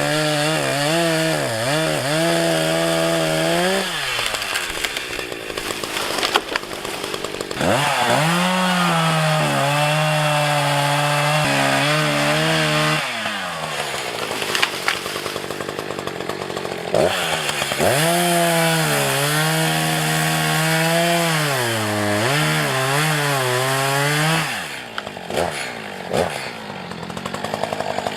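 Two-stroke chainsaw held at full throttle, cutting into pine wood in three long stretches, its pitch sagging and recovering as the chain bites; between the cuts the engine drops back toward a lower, quieter speed.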